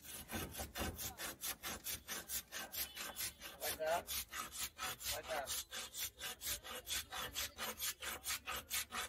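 A block of ice pushed back and forth by hand across the blade of a hand ice-shaver, shaving it into crushed ice. Regular rasping strokes, about four a second.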